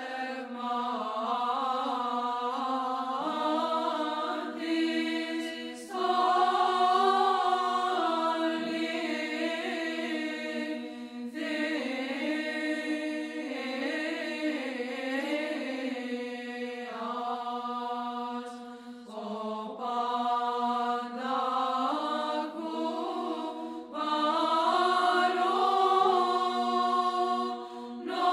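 Background music of Orthodox church chant: a voice sings a melody in long phrases with short breaks, over a steady held low note.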